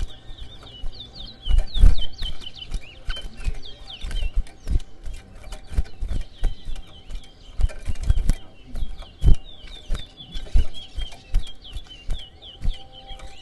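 Caged towa towa finch singing in a song-counting race: song after song of rapid, short, high whistled chirps. Scattered low thumps and knocks sound under the song.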